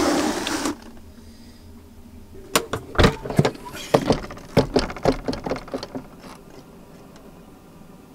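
A loud hiss that cuts off suddenly just under a second in, then a run of irregular sharp clicks and knocks lasting about three seconds.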